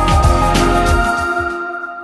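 Background music with a beat and held notes, fading out in the second half as the beat stops.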